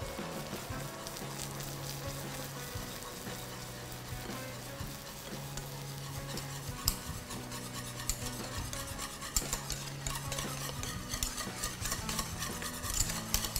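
Wire whisk stirring hot, bubbling caramel with butter and sweetened condensed milk in a small saucepan, the mixture sizzling steadily; the whisk clicks and taps against the pot more often toward the end.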